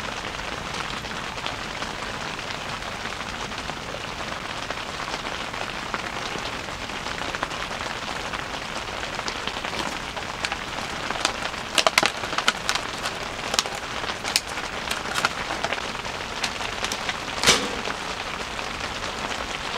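Steady rain pattering on the tent, heard from inside. Over it, aluminium foil crinkles and crackles for several seconds past the middle as it is pressed over a food tray, and a single sharper knock near the end as the tray is set down on the kerosene heater's top.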